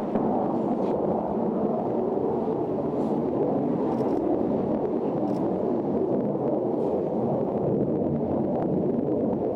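Rocket motor burning after a sea launch: a steady, loud rushing noise with no change in pitch.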